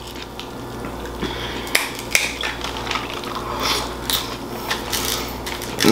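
King crab leg shells cracking and plastic seafood-boil bags crinkling under gloved hands, with sharp clicks and crackles scattered through.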